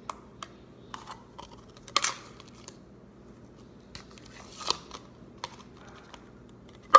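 Sticky slime being stretched and pulled by hand out of a clear plastic cup, giving scattered small clicks and pops, with two louder crackling bursts about two seconds in and a little before five seconds, and a sharp click at the very end.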